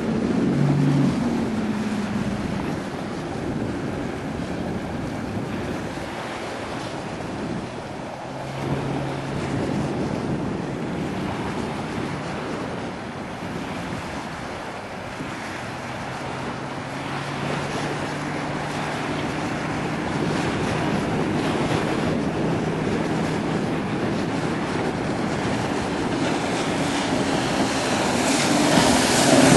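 Mercury Verado outboard motor running at speed on a passing boat, a steady drone mixed with spray and wind noise on the microphone, growing louder near the end as the boat runs close by.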